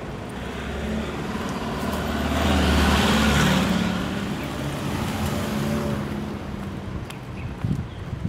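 A motor vehicle passing by on the road: its engine and tyre noise swell, are loudest a little before the middle, and then fade away.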